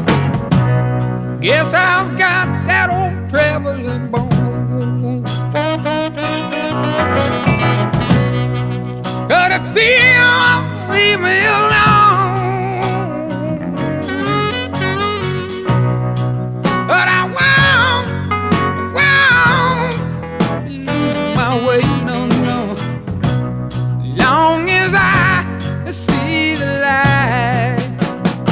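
Music: a song passage with a wavering melodic lead over a steady bass line.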